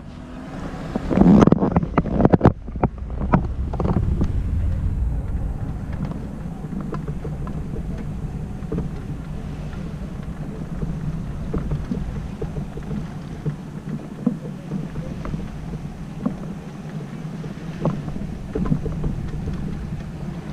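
Wind on the microphone over a steady low hum, with a car passing close by and a few sharp knocks in the first few seconds.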